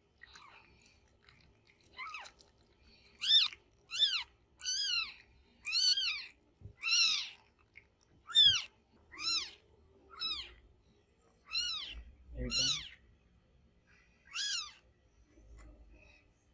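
Newborn kitten mewing: about a dozen short, high-pitched cries, each rising then falling in pitch, coming roughly once a second from about two seconds in.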